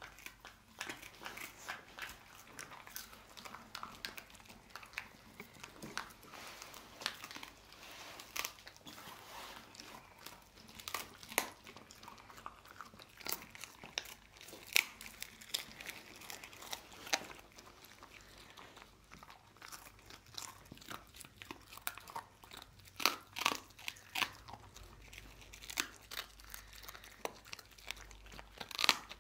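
Dog chewing a dried kangaroo rib: irregular sharp crunches and bites of dry bone and meat, coming in scattered clusters with brief pauses between them.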